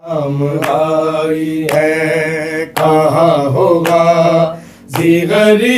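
Male voices chanting a noha, an Urdu lament, together and unaccompanied. A sharp beat falls about once a second to keep time.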